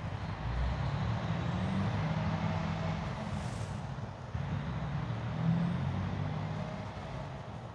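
Truck passing on a nearby highway: a steady, low engine drone with tyre and road noise.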